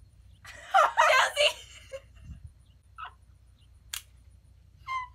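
Girls shrieking and laughing, loudest for about a second near the start, then a few short laughs and a single sharp click near the end.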